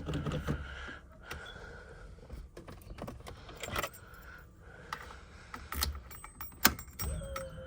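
Irregular jangling rattles and clicks, as of a bunch of keys being handled, with one sharp click near the end.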